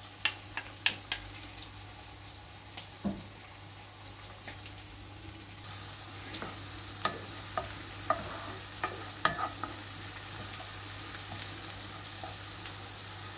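Chopped onion and garlic frying in butter in a non-stick pan, sizzling steadily, with a wooden spoon scraping, stirring and tapping against the pan. The sizzle is louder from about halfway through.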